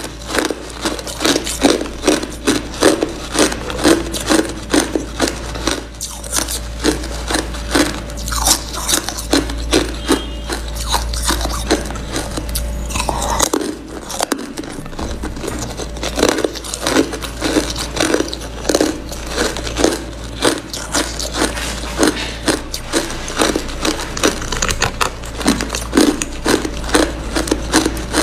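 Close-up chewing of hard frosty white ice: crisp crunches in rapid succession, about two or three a second, with a short lull about halfway through as a new piece goes into the mouth. A steady low hum runs underneath.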